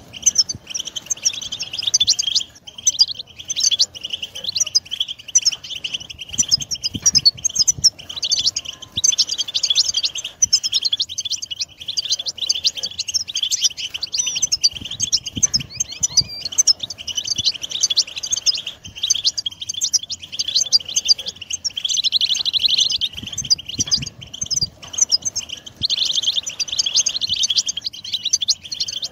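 European goldfinches singing: a continuous, rapid twittering song, with louder stretches about a third of the way in and again near the end.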